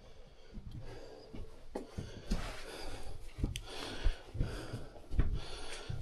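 People moving through a mine tunnel: irregular thuds and scuffs of footsteps and handling on a rocky floor, with a few sharp clicks and heavy breathing, in a close, enclosed space.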